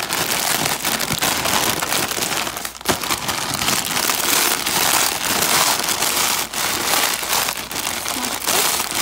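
A potato chip bag crinkling and crackling steadily as it is squeezed and crushed by hand, the chips inside crunching.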